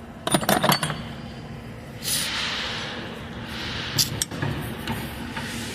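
Metal clinks and knocks of hand tools and engine parts being handled, a quick cluster early and two sharp clicks about four seconds in, with a hissing whoosh in between.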